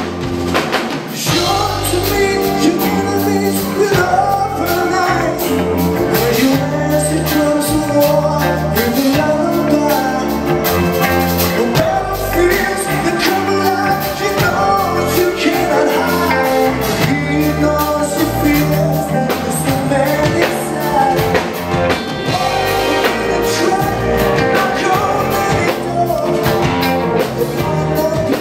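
Progressive rock band playing live: electric guitars, bass guitar and drums, with a male lead vocal singing over them.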